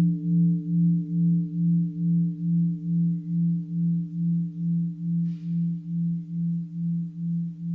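Buddhist mindfulness bell ringing on after a strike: a deep, steady tone with a few higher overtones, pulsing about twice a second as it slowly dies away.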